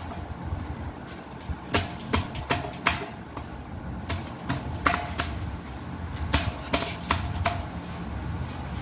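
Hands patting and pressing a stack of freshly fried bun parottas against a steel plate, a string of irregular sharp slaps and knocks a few per second. This is the step that loosens the flaky layers.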